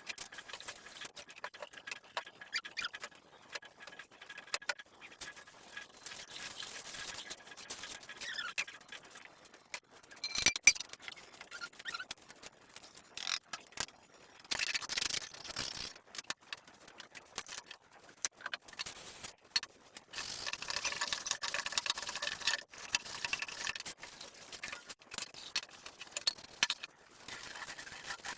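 Kitchen work sounds: utensils and dishes clinking, knocking and scraping in an irregular run of small clicks, with a few short stretches of hiss.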